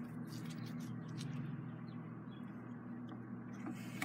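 A steady low hum, with a few faint small splashes and drips of water in a bucket as a fidget spinner frame is dipped and swirled through a film of spray paint on the water.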